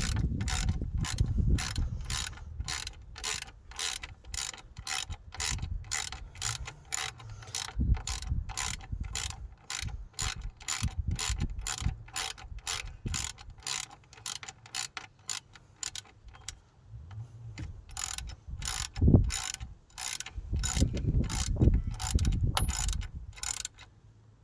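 Ratchet wrench clicking in a steady rhythm, about three clicks a second, as an alternator mounting bolt is wound in. The clicking pauses briefly about two-thirds through, then resumes with one louder knock.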